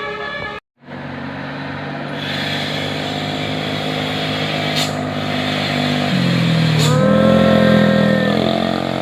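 After a brief break in the sound, a bus engine runs and grows steadily louder. From about six seconds in, the bus's musical 'telolet basuri' air horn sounds a low note and then holds a multi-tone chord for about a second and a half.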